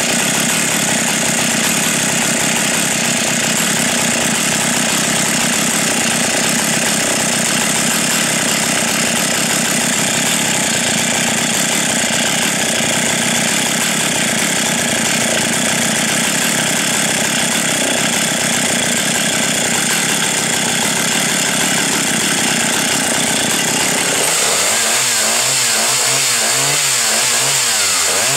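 A two-stroke chainsaw engine running steadily. About four seconds before the end its note changes and wavers up and down.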